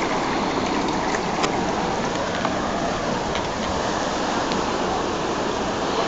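Floodwater rushing steadily, with a few faint splashes and drips.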